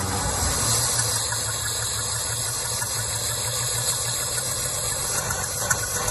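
Humber Super Snipe's straight-six petrol engine running steadily just after firing up, on its first start as a barn find.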